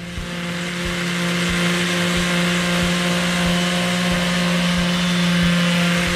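Electric orbital sander with a dust-extraction hose running steadily on a wooden cap rail: a constant motor hum under the hiss of the sanding pad on the wood.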